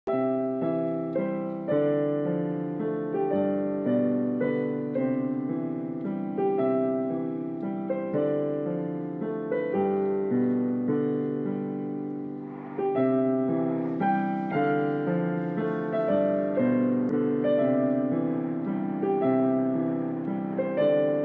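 Background piano music: a gentle, steady run of notes that ring and fade. There is a brief dip about halfway through before the next phrase starts.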